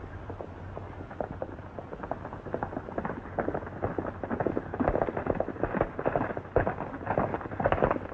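A group of horses galloping on a dirt track: a rapid, irregular clatter of hoofbeats that grows louder as they approach.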